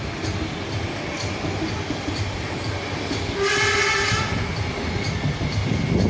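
A Lastochka (Siemens Desiro RUS) electric multiple unit passing close by, with a steady rumble and light regular wheel clicks over the rail joints, about two a second. A brief high-pitched tone sounds about three and a half seconds in.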